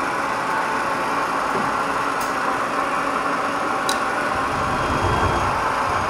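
Mazak CNC lathe running with a steady machine hum while its tool-setter probe arm swings down into place, with a faint click about two seconds in and another about four seconds in. About four and a half seconds in, a low rumble joins as the turret moves the boring bar toward the probe.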